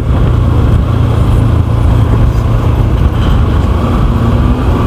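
Riding sound of a Yamaha FZ V2 single-cylinder motorcycle at steady speed: a loud, steady rumble of wind on the microphone mixed with the engine running.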